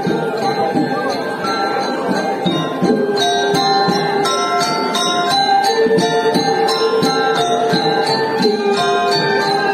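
Balinese gamelan playing: held, ringing bronze notes over one another, with a denser run of sharp metallic strikes from about three seconds in.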